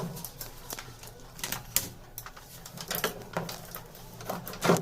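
Irregular clicks and knocks of tools and parts being handled while an RO water purifier is taken apart, with a louder knock near the end.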